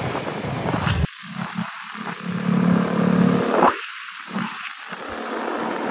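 A motor vehicle running along a road, with a steady engine hum that grows louder in the middle and cuts off abruptly. The sound changes sharply about a second in.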